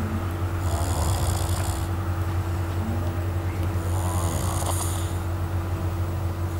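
A person snoring in their sleep, with snoring breaths about three seconds apart, over a steady low hum.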